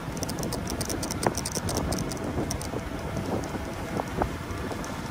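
Vehicle driving across a grassy paddock: a steady low rumble and wind noise on the microphone, with many quick light rattling clicks and a few knocks.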